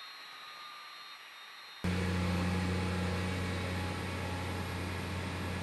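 Faint whine of a taxiing jet aircraft, with a high tone slowly falling in pitch. Less than two seconds in it switches suddenly to a loud, steady low drone of aircraft engines or power units at a cargo loading ramp.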